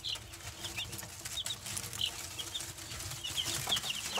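A brood of baby chicks and quail chicks peeping, many short high chirps scattered throughout, over light rustling and scratching in pine-shaving bedding.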